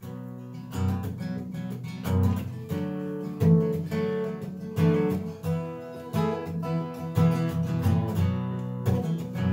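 Acoustic guitar strumming chords in a steady rhythm, starting at once: the instrumental intro of a song before the vocals come in.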